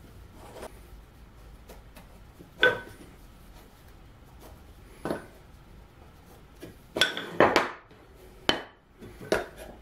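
Wooden strips and a metal combination square being set down and shifted on a workbench: a handful of sharp knocks and clinks, one about two and a half seconds in, one near five seconds, and a quick cluster around seven seconds in, then two more near the end.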